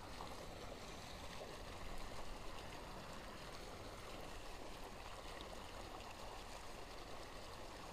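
Faint, steady outdoor background noise with no distinct events.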